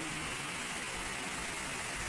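Steady rush of water from a waterfall and a rocky mountain stream, an even hiss without breaks.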